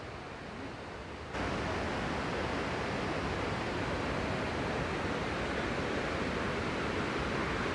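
Steady rushing of water from a river and waterfall in the valley, an even hiss that jumps abruptly louder about a second in and then holds.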